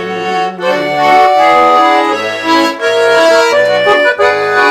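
Russian garmon, a button accordion, playing an instrumental phrase between sung lines of a folk song: several notes held together over a pulsing bass.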